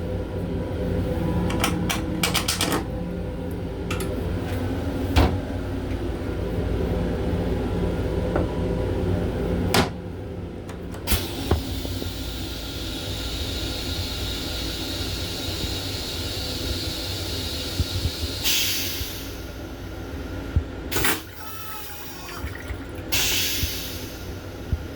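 Toilet in a Long Island Rail Road M7 railcar restroom flushing, with a long even hiss of several seconds. Underneath runs the steady rumble of the moving train. There are scattered knocks and clicks early on and a few short loud bursts near the end.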